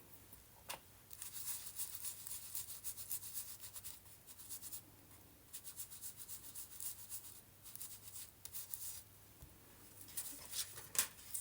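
Quick scratchy rubbing strokes on paper, coming in three spells with short pauses between them.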